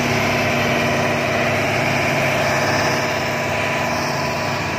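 Hitachi 200-class hydraulic excavator's diesel engine running steadily as the machine drives up onto a truck's trailer, easing off slightly about three seconds in.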